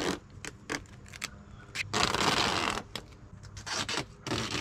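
Duct tape being pulled off the roll in two long rips, the first about two seconds in and the second near the end, with short crackles of the tape being handled before them.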